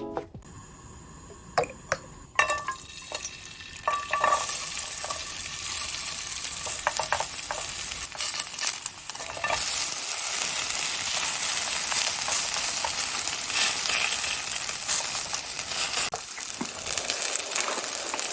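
Grated sweet potato pancake frying in oil in a pan, sizzling steadily from about two seconds in, with a few clicks and clinks of a utensil against the pan.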